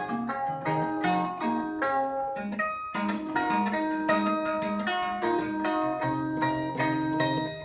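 Sundanese kacapi (plucked board zither) played solo: a quick melodic run of ringing plucked notes over held low bass notes, with a brief gap about three seconds in.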